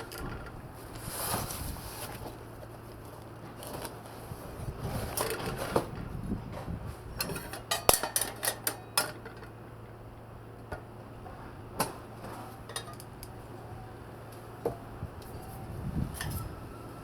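Light metal clinks and knocks of steel pieces being handled, scattered through, with a quick run of clinks about eight seconds in.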